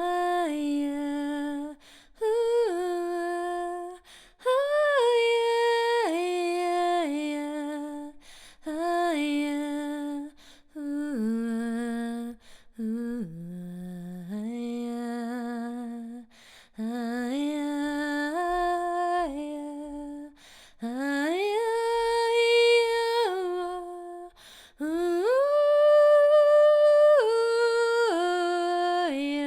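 A woman's voice in wordless sound-healing singing, unaccompanied. Long held tones slide up and down between pitches, in phrases of one to four seconds broken by short pauses for breath.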